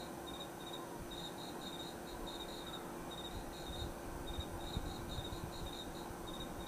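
Crickets chirping: short high chirps in clusters of three or four, pausing between clusters, over a steady low hum.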